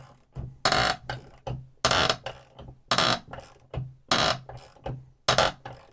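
A ratchet wrench turning the long bolt of a crankshaft puller, drawing a Stihl MS 660 crankshaft into its main bearing. There is a loud rasping stroke about once a second, with quieter clicking between the strokes. The work is noisy but takes little force on the wrench, showing that the crank is not binding.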